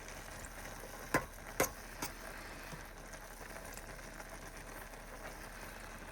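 Food cooking in a pot on a stove: a faint steady sizzling hiss, with three sharp clinks close together about a second in, like a utensil knocking the pot.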